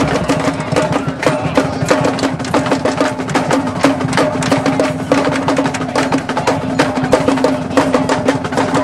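Marching band playing: rapid drumline strokes over brass holding steady notes.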